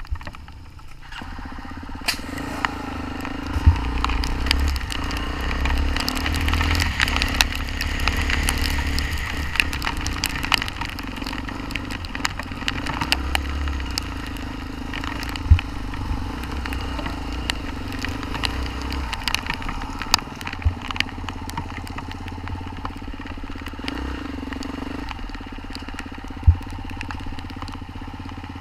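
Off-road motorcycle engine running steadily, with frequent sharp knocks and crackles over it. It builds up about two seconds in.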